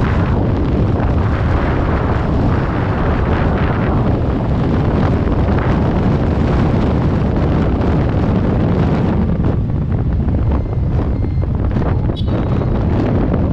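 Heavy wind buffeting a GoPro action camera's microphone on a moving motorcycle, a loud, steady low rush with the motorcycle's running noise underneath.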